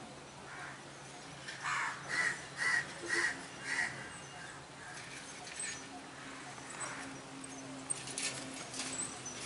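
A bird calling: five short calls about half a second apart, a couple of seconds in, over a faint steady low hum.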